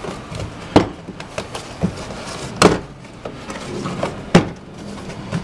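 Plastic interior trim panel of a Honda Odyssey being pried off, its retaining clips snapping loose: three sharp snaps with a few fainter clicks between.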